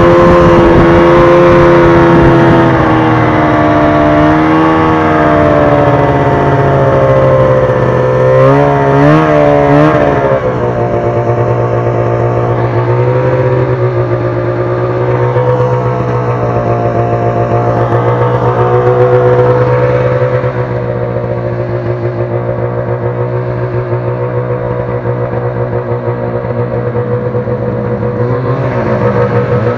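Arctic Cat snowmobile engines running under way, the pitch rising and falling with the throttle and wavering quickly about eight to ten seconds in. After that the engine note runs steadier and a little quieter. Near the end a second engine rises in pitch as another sled approaches.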